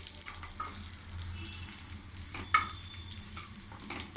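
Cashews and raisins sizzling in a little hot ghee in a kadai, stirred with a wooden spatula that scrapes and taps against the pan. One sharper knock comes a little past halfway.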